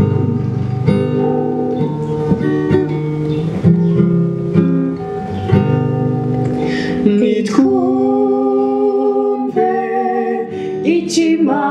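Acoustic guitar strummed in a steady rhythm of chords. Singing joins in over the guitar about two-thirds of the way through.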